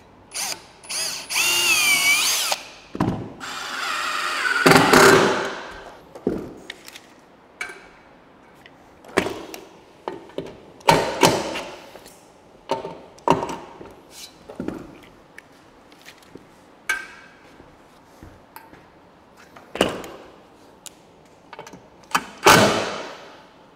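Cordless power driver sinking lag screws through the base of an aluminum railing post: two longer runs with a wavering motor whine in the first few seconds, then many short trigger bursts as the screws are snugged down.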